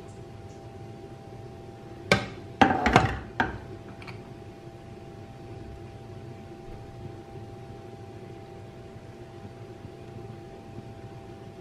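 Cookware clattering on a gas stove: one sharp knock about two seconds in, then a quick run of loud knocks lasting about a second. A steady hum with a faint whine runs underneath.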